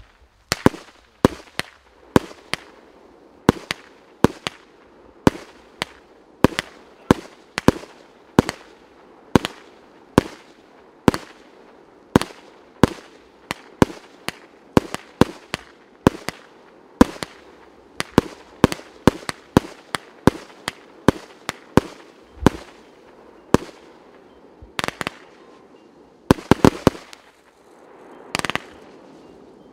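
A 300-shot, 1.2-inch consumer firework cake (Piroff 'Warriors of the Sun') firing shot after shot: sharp reports about two a second over a faint continuous noise. A quick cluster of several shots comes near the end.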